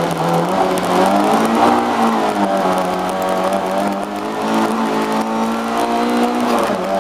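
Lada race car's 1.3-litre four-cylinder engine heard from inside the cabin, running hard at high revs through a fast stretch of track. The revs hold high and steady with a brief drop near the end.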